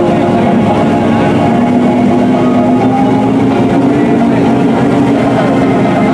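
Engine of a monster side-by-side buggy running steadily under load as it pushes slowly through a deep mud hole, a loud, even drone.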